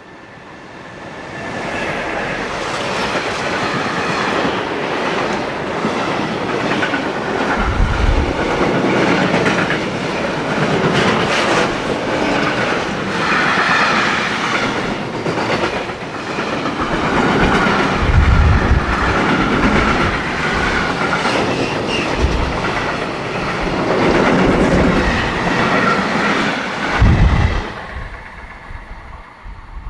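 DB Class 152 electric locomotive and its freight train of tank wagons passing through: a swelling rush of rolling wagons with wheels clattering over the rail joints and a few deep thumps along the way, dying away near the end.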